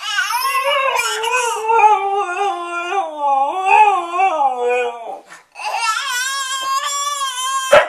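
A pet's long wailing cries, mimicking a crying baby. One wail slides down in pitch over about five seconds; after a short break a second wail holds nearly one pitch, cut off by a sharp click near the end.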